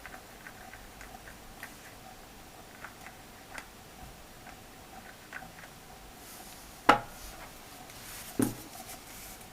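Small clicks and taps from binoculars and their packaging being handled, with two louder knocks about a second and a half apart near the end.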